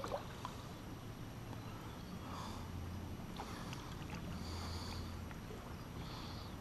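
Kayak paddle strokes in calm river water: quiet swishes and drips every second or two, with a few light clicks.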